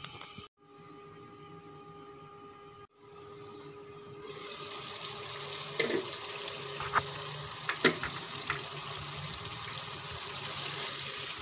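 Carrots and peas sizzling and bubbling in a pan as the cooking water cooks down, quieter at first and louder from about four seconds in. A few short knocks of a spatula against the pan come as the vegetables are stirred.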